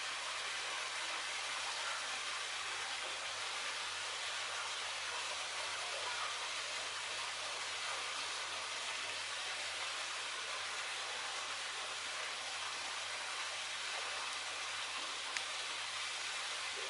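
Steady, even hiss of background noise with no distinct events, only a single faint click about fifteen seconds in.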